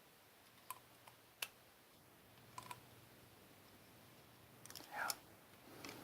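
Light scattered clicks and taps of small screws being tightened on a quadcopter frame, a sharper tick about a second and a half in and a louder cluster of clicks about five seconds in.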